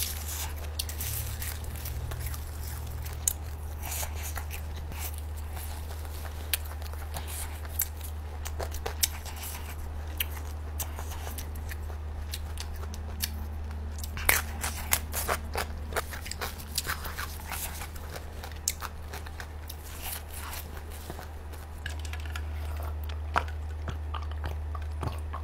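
Close-miked chewing and crunching, many small crackles and bites, as fermented pork roll (nem chua) is eaten with a fresh green chili and herbs, over a steady low hum.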